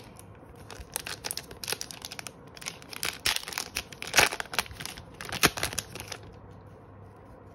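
Pokémon card booster pack's foil wrapper crinkling and tearing open in the hands: a run of sharp crackles lasting about five seconds.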